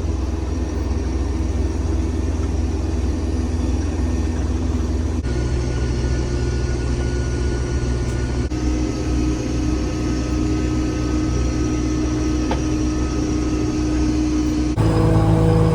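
Case IH combine harvester running steadily: a low, loud machine drone with a few steady tones above it. The drone changes abruptly three times, where the footage is cut between takes.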